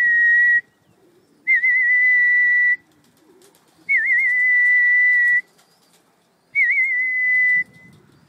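Long whistled calls to bring racing pigeons in to the loft trap. There are four notes about two and a half seconds apart. Each one opens with a brief warble, then holds one steady high pitch for about a second.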